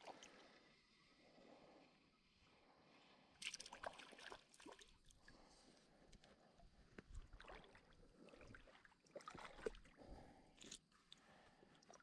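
Near silence with faint, scattered water sloshes and small splashes in a shallow creek, loudest in a short cluster about three and a half seconds in.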